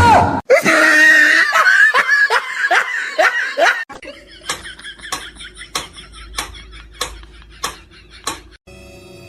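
A person laughing hard in short, repeated falling bursts for about four seconds. Then comes a quieter stretch of sharp clicks, about one every 0.6 s.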